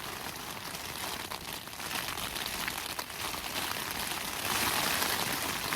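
Heavy rain falling on a small tent's flysheet, heard from inside the tent as a steady hiss of many small ticks, growing louder about four and a half seconds in.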